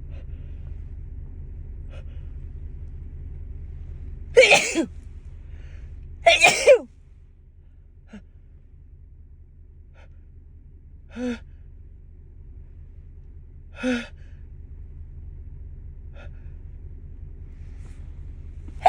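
A woman sneezing twice, loudly and about two seconds apart: allergy sneezes set off by dust. Two much softer, short breathy sounds follow, one around eleven seconds in and one around fourteen, over a steady low rumble.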